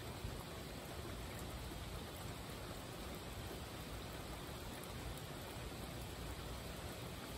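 Steady rainfall: an even hiss that holds without let-up.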